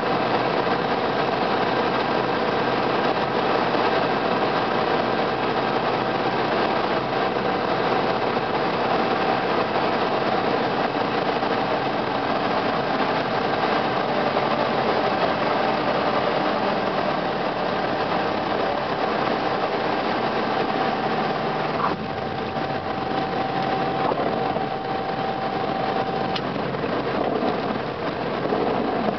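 Single-engine light aircraft's piston engine and propeller running steadily at low landing power, heard inside the cockpit with wind and airframe noise, through the touchdown and rollout.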